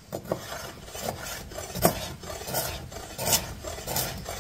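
Chef's knife slicing a carrot into rounds on a wooden cutting board: an uneven run of short knocks, two or three a second, as the blade cuts through and strikes the board.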